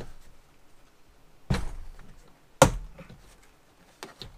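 Two sharp snaps about a second apart as the plastic retaining clips of a BMW E39 rear door panel pop loose under a pry tool, then a couple of lighter clicks near the end.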